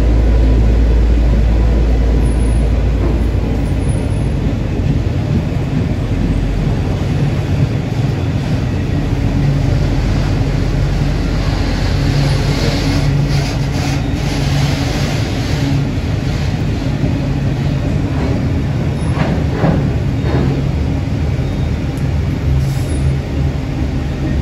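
Loaded ballast wagons of a freight train rolling past, a steady low rumble of wheels on rail, with a few sharp clacks about two-thirds of the way through.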